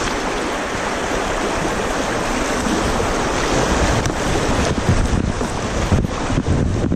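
Fast shallow river water rushing through a rocky riffle as a kayak runs it, waves splashing against the bow, with wind buffeting the microphone. It gets choppier in the second half, with more splashes and gusts.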